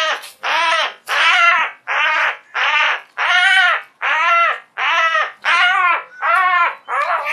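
Jackdaw giving distress calls while pinned down by a sparrowhawk: a fast, regular series of loud calls, nearly two a second, each under half a second and rising then falling in pitch.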